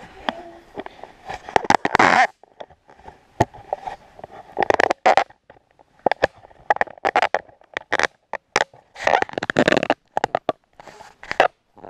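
Handling noise on an action camera: a run of sharp clicks, knocks and scraping rustles as the camera is handled and fitted onto a baby stroller.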